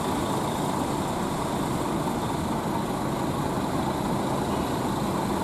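Steady, even running noise of idling bus engines.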